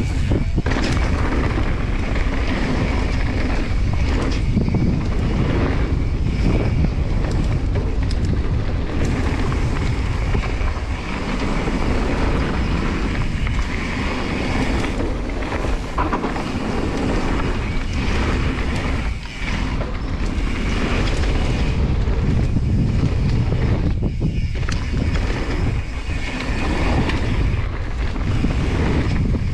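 Wind rushing over the action camera's microphone, mixed with the mountain bike's knobby tyres rolling over a dirt and gravel trail at speed. The rush is steady and loud, broken by frequent short knocks and rattles as the bike goes over bumps.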